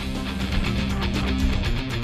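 Instrumental break music from a TV newscast: strummed guitar over held bass notes and a steady beat.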